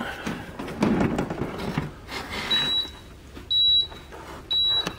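Plastic handling clatter from the dehumidifier's water bucket being moved. Then, from about halfway in, the unit's electronic alert beeps: a single high beep about once a second, typical of a dehumidifier signalling that its bucket is out or full.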